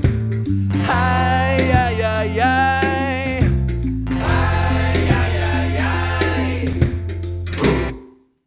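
Background music: an acoustic-guitar song with a wordless sung melody, which finishes and cuts off near the end.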